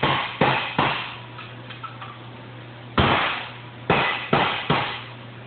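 Hand hammer striking steel sheet metal, hammering down ruffles to shrink the edge of a Model A quarter panel: three quick ringing blows in the first second, then four more after a pause of about two seconds, over a steady low hum.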